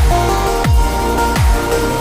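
Electronic dance music with a heavy beat: deep bass kicks that drop in pitch, about one every 0.7 seconds, under held synth notes.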